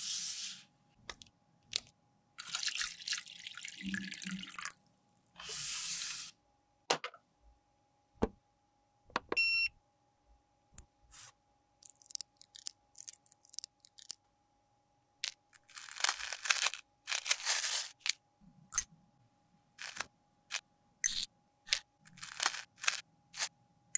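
Close-up handling sounds of a plastic eyeshadow palette: scattered clicks and taps, with bursts of scratchy scraping. Tweezers pick at the pans mid-way, and a metal spatula scrapes crumbly pressed eyeshadow out of its pan near the end. A brief high squeak sounds about nine seconds in.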